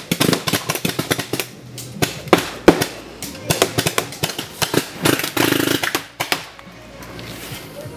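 Paintball markers firing in irregular strings of sharp pops, several a second at times, quieter for the last second or so.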